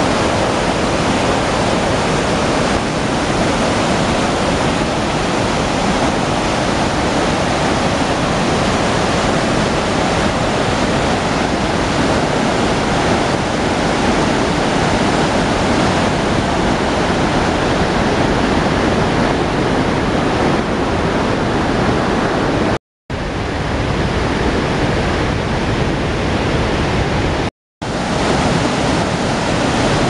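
River cascade rushing over granite rock, a loud, steady rush of water noise. The sound cuts out completely for an instant twice near the end.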